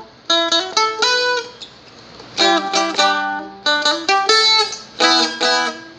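Seagull Merlin, a small four-string strum stick, played alone in short phrases: barred chords with a quick picked flick of notes each time, in about four bursts with brief pauses between them.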